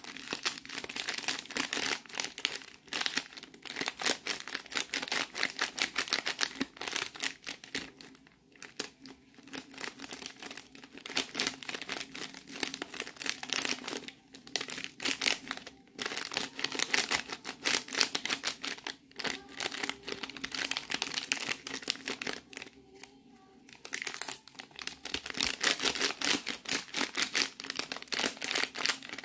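Plastic-foil sachet of cat milk powder crinkling as a hand shakes and squeezes it to empty the powder into a plastic cup, in spells with a few short pauses.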